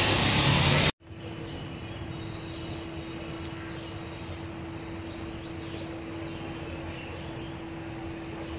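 Quiet background ambience: a steady low hum with a faint hiss and a few faint, high, falling chirps. A louder burst of noise stops abruptly about a second in.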